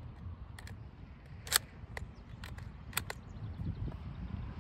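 Sharp metallic clicks and clacks from an 8mm Mauser bolt-action rifle's action being worked as it is loaded and readied to fire. There are about six of them, with the loudest about one and a half seconds in.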